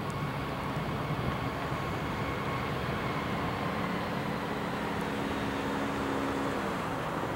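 Airbus A320's CFM56 turbofan engines running at low thrust as the jet taxis onto the runway: a steady jet rumble with faint whining tones.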